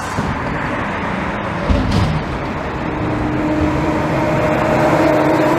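Front-loading garbage truck's diesel engine running, with a low thump about two seconds in. From about three seconds the engine revs up and holds a higher steady pitch as it drives the hydraulic lift arms.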